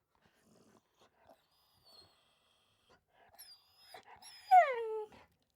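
Dog whimpering: faint thin, high whines, then one louder whine about four and a half seconds in that falls in pitch.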